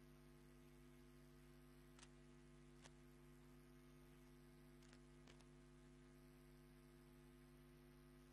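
Near silence: a steady low electrical hum with a few faint clicks.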